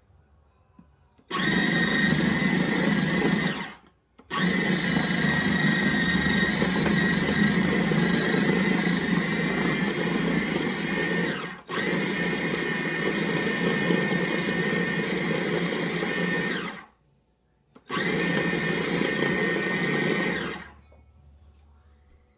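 KitchenAid 13-cup food processor's motor running in four runs of a few seconds each, the longest about seven seconds, each starting and stopping suddenly. The machine is mixing crumbly pie crust dough after more water has been added.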